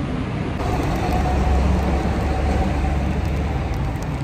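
City street traffic noise, with a vehicle's low engine rumble swelling through the middle.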